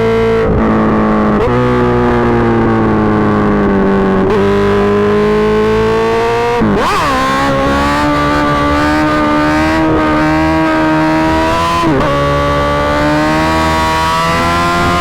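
Suzuki GSX-R1000 inline-four engine through an M4 GP Series slip-on exhaust, running loud under way. Its note drifts slowly and jumps abruptly in pitch several times, with a sharp blip about seven seconds in.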